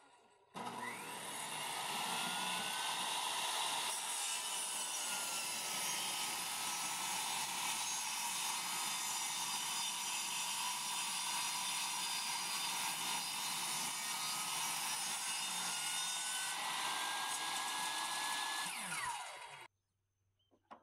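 Portable jobsite table saw running and ripping wooden boards, its motor whine dipping and rising as the blade takes the load. It starts about half a second in and fades out near the end as the saw winds down.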